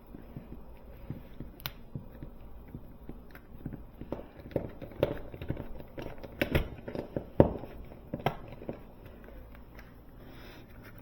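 Irregular light clicks, taps and knocks of plastic being handled: a thermostat back plate being positioned against the wall with the wires fed through it.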